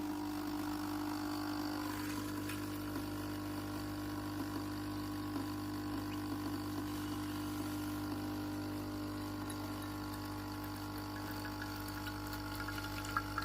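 Capsule espresso machine's vibratory pump humming steadily as it pushes water through to brew, with faint liquid sounds over the hum.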